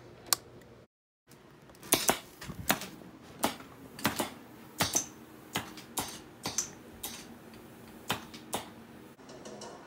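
Pneumatic animatronic's solenoid valves and air cylinders clicking and clacking as it moves, in sharp separate clicks about one or two a second at uneven intervals, a few with a brief high ring.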